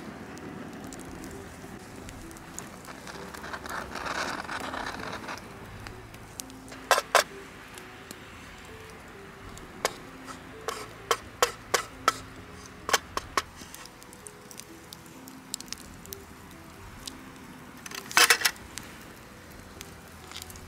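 Soft background music with a few sharp clicks and knocks over it, a wooden stick scraping and tapping rose hip purée out of a metal pan.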